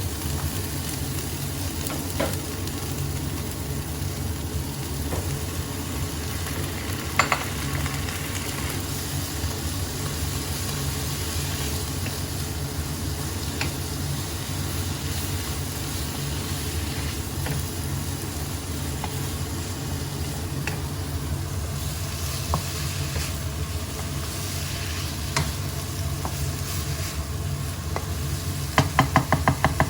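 Asparagus stir-frying with shrimp paste (belacan) in a hot pan: steady sizzling over a low hum, with the odd clink of a spatula against the pan. Near the end comes a quick run of about eight spatula taps.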